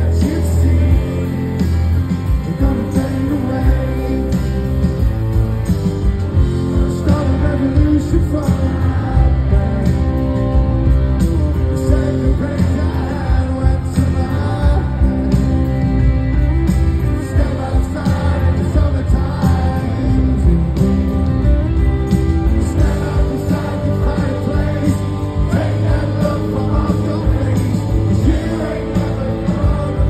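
Live rock band playing through a concert PA: electric guitar, bass and drums under a sung vocal.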